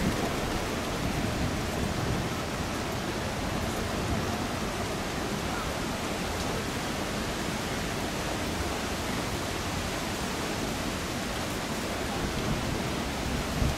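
Heavy rain falling in a sudden downpour: a steady, even hiss of rain.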